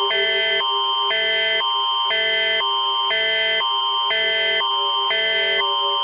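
Canadian Alerting Attention Signal: two chords alternating about every half second over a steady high tone, with a steady low tone underneath.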